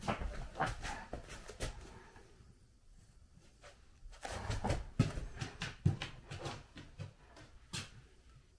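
A German shepherd walking on a wooden floor, its claws and feet clicking and tapping in irregular steps. The steps bunch up at the start and again around the middle, with one last tap near the end.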